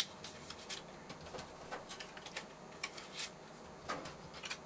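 Plastic cards clicking and scraping as they are handled and slid into the pockets of a thin 3D-printed TPU wallet: a string of light, irregular clicks, the sharpest right at the start.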